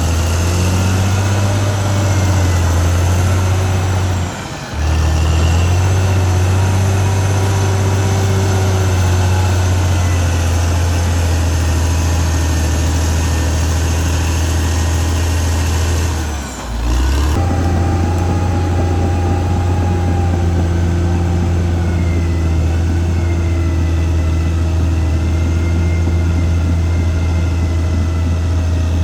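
Caterpillar D6R XL bulldozer's diesel engine running steadily, with two brief dips in level, one about four seconds in and one about sixteen seconds in.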